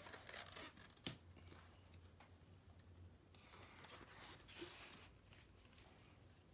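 Faint rustling of paper book pages being turned and handled, with a single sharp click about a second in.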